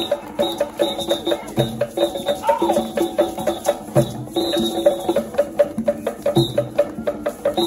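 Live African-style percussion: tall hand drums struck in a fast, steady rhythm, mixed with short pitched wooden-sounding notes.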